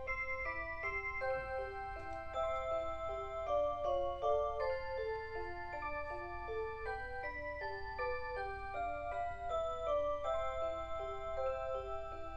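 Alarm clock playing its melody alarm: a simple electronic tune of short notes, several a second, stepping up and down in pitch, with a steady low hum underneath.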